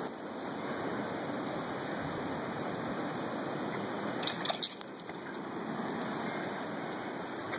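Steady rushing wind noise on the phone's microphone, dipping briefly about five seconds in. A few sharp clicks come just before the dip and are the loudest sound.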